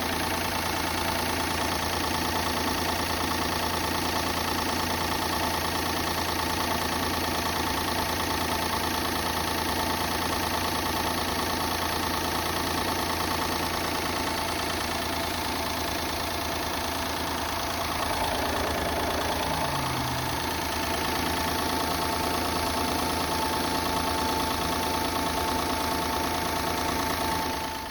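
Car engine idling steadily, with a steady high whine over it: an abnormal engine noise of the kind traced to the power steering pump, water pump or air-conditioning compressor. The whine wavers briefly about two-thirds of the way through.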